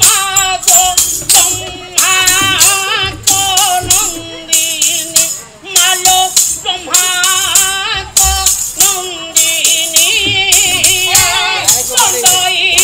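Odia Pala singing: a solo voice sings a wavering melody over a steady beat of metallic jingling percussion and drum.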